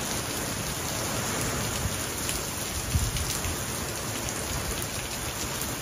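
Heavy hurricane rain pouring steadily in a downpour, a dense even hiss of rain on water and paving.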